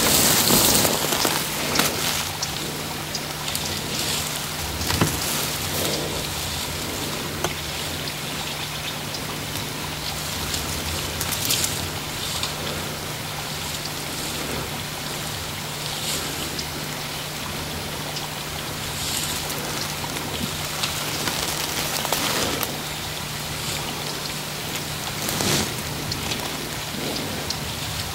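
Rain falling on the branches and leaves close by: an even hiss with scattered sharper drop ticks, over a steady low hum.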